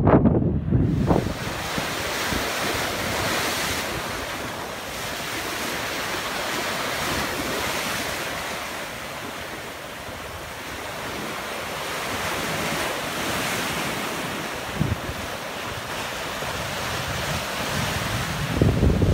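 Sea waves washing against a rocky shore, with wind buffeting the microphone in heavy gusts at the start and again near the end.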